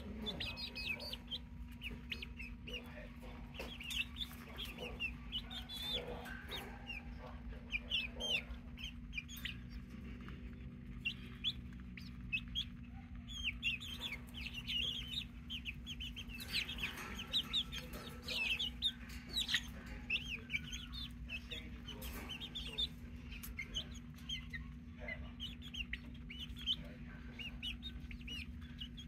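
Flock of young pullets peeping and clucking softly while they feed, many short high chirps overlapping all the way through.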